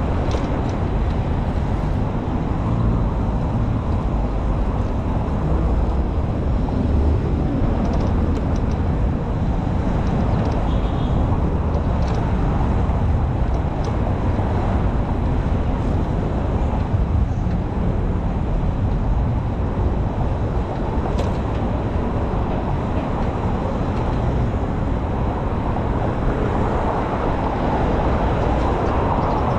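Steady low rumbling rush of riding a Citi Bike along a city bike path: wind and rolling road noise at the handlebar-mounted camera, mixed with nearby car traffic.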